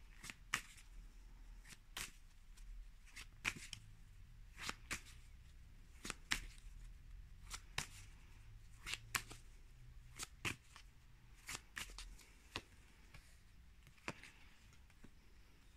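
Deck of tarot cards being shuffled by hand, overhand style: a faint, irregular string of card slaps and snaps, roughly one every half second to a second. Near the end, cards are laid down onto the cloth.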